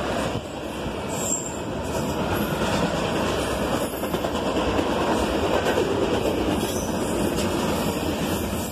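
Double-stack intermodal freight cars rolling past close by: a steady, loud rumble and rattle of steel wheels on the rails.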